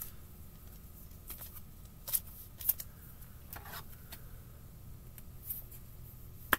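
Trading cards handled and set down on a table: scattered light clicks and taps over a faint steady low hum.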